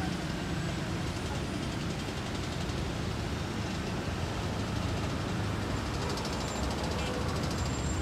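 Road traffic: a tour coach's engine running as it drives through a hairpin bend, mixed with passing motorcycles. The low rumble is steady throughout.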